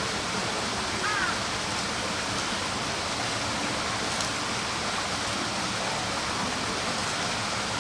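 Steady rushing noise like running water, with a short high chirp about a second in.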